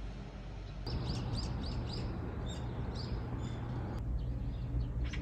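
Small birds chirping in short, repeated notes, starting about a second in, over a low steady hum.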